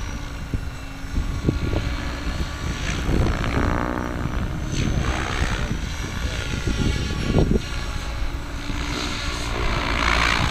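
Electric RC helicopter (MSH Protos Max V2) flying, its main rotor and motor giving a steady drone whose pitch rises and falls as it passes by, most clearly about four seconds in.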